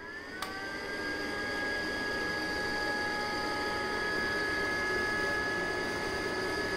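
EGO 56-volt brushless 21-inch mower's motor and blade spinning up and then running at a steady speed: a whir that glides up in pitch and settles into a held hum over a rushing of air. A sharp click comes about half a second in.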